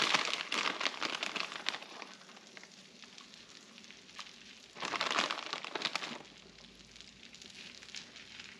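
Shredded hash browns sizzling as they go into melted butter on a hot Blackstone flat-top griddle, with the plastic bag crinkling as they are shaken out. It is louder over the first second or so and again in a short burst about five seconds in, then settles to a quieter sizzle.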